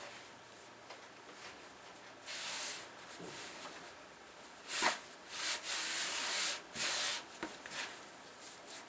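Hands kneading a ball of fondant into powdered sugar on a countertop: rubbing and pressing sounds in several bursts, with one louder short knock about five seconds in.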